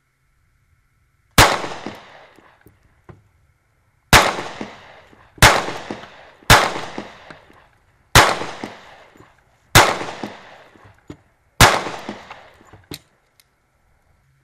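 Seven gunshots in irregular succession, one to three seconds apart, each a sharp crack that trails off in echo over about a second.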